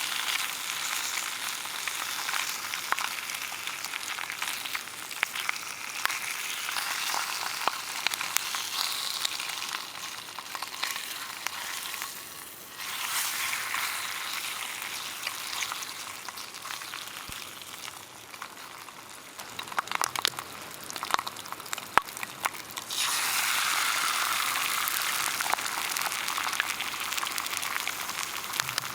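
Food sizzling and frying in a pan, a steady hiss with scattered crackles and pops. It dips briefly about twelve seconds in, pops sharply a few times past the middle, and grows louder for the last few seconds.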